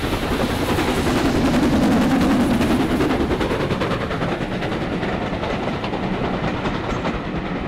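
Train running at speed, a fast, even run of beats over a heavy rumble that begins to fade near the end.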